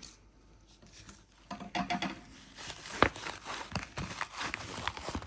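Rustling and crinkling of a tape-covered paper squishy page as cotton stuffing is pushed in through its opening. It starts about a second and a half in, with a few sharper clicks.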